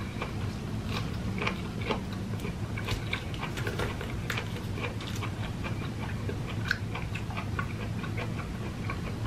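Close-miked chewing of soft, chewy jackfruit flesh: irregular small wet mouth clicks, over a steady low hum.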